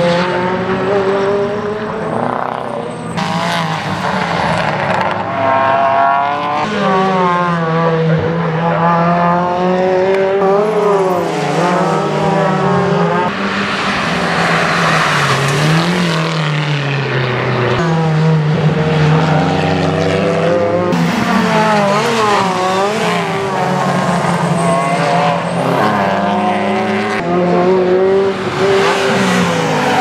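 Race car engines at hard throttle on a circuit, climbing in pitch through the revs and dropping at each gear change and lift for the corners, one car after another. The sound changes abruptly every few seconds as one clip cuts to the next.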